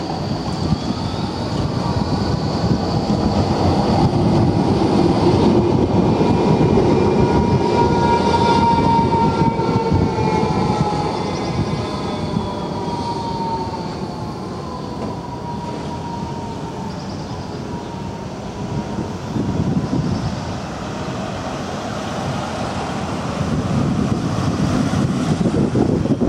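Electric low-floor tram rolling past slowly on the tight curve of a turning loop. Several drawn-out high tones sit over its running rumble through the middle and slowly sink in pitch. Road traffic passes near the end.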